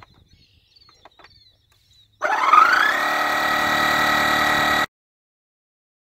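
DeWalt 20V cordless tire inflator's compressor motor starting about two seconds in, its pitch sweeping up quickly and then running steadily as it pumps air into a lawn tractor tire, which is set to fill to 12 psi. The sound stops abruptly about a second before the end.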